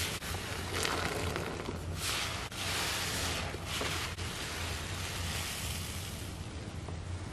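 Soapy kitchen sponges squeezed and wrung in a sink full of suds: wet squelching and fizzing foam with water running out, coming in several swells. A low steady hum runs underneath.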